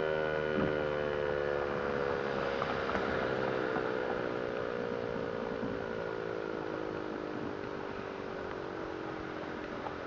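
American Signal T-128 dual-tone rotating outdoor warning siren winding down at the end of its test run, its chord of tones falling slowly and steadily in pitch as it fades.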